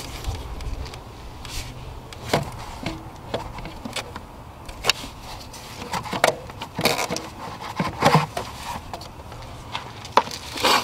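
Irregular clicks and knocks of the plastic air intake housing and engine-bay parts being handled and pulled free, over a low steady background hum.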